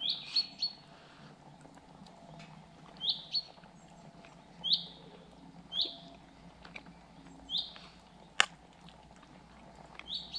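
A songbird repeating a short, sharp high chirp every one to two seconds, with one sharp click, the loudest sound, near the end.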